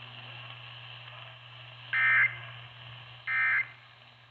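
Two short bursts of Emergency Alert System (SAME) digital data tones from a NOAA Weather Radio broadcast, a buzzy warble around 2 kHz about a second and a quarter apart. These are the end-of-message code that closes a tornado warning. A steady low hum runs underneath.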